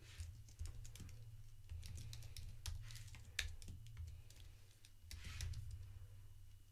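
Typing on a computer keyboard: a quick, irregular run of faint key clicks over a low steady hum.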